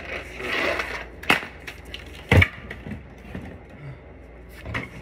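Hard plastic knocks and thuds of a cordless handheld vacuum being stamped on and knocked about on a concrete floor. There is a rough scraping in the first second, a sharp knock about a second and a half in, and a heavy thud about two and a half seconds in.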